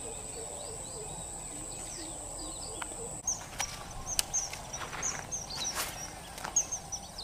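Rural pond-side ambience with small birds chirping repeatedly. A steady high whine and low repeated calls fill the first three seconds, then cut off suddenly. After that, short high chirps repeat, with a few sharp clicks.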